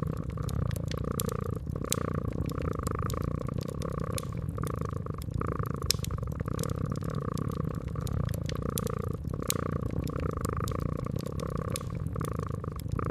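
Domestic cat purring steadily in a slow, repeating in-and-out rhythm, with a wood fire crackling in sharp, irregular pops.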